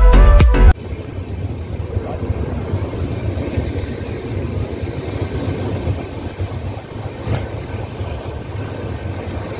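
Background music cuts off abruptly under a second in, giving way to the steady rumble and wind of a moving Indian passenger train heard from its open coach doorway. A single sharp knock comes about seven seconds in.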